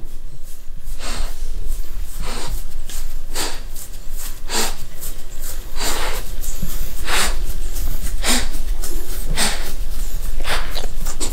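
A pocket American Bully breathing noisily through her short nose, with a short snort about once a second.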